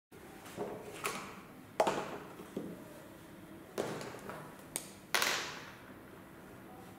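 A clear plastic grid ruler and pencils being set down and shifted on paper over a hard tabletop: a string of irregular sharp taps and knocks, about seven in all, the loudest about two and five seconds in.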